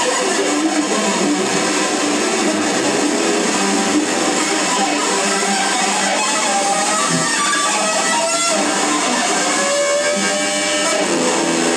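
Electric guitars and a bass guitar played through amplifiers in a loud, chaotic noise jam, with pitches wavering throughout.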